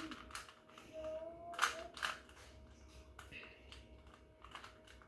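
Rubik's cube being turned by hand during a solve: irregular plastic clicking and clacking as its layers are twisted, loudest about a second and a half in.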